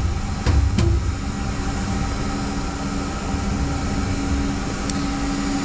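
Steady mechanical hum of running machinery, with a few brief light clicks.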